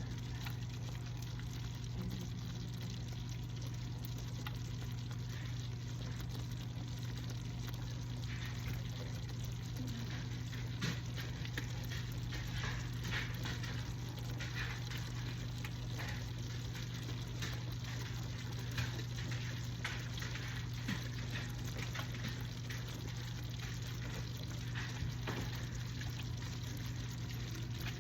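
Stovetop cooking: a pot of fresh pasta in boiling water, with faint bubbling and scattered crackles over a steady low hum.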